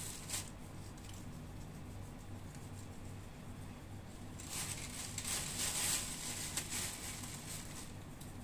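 Thin plastic bag rustling and crinkling as it is handled, loudest for a couple of seconds past the middle, over a faint steady low hum.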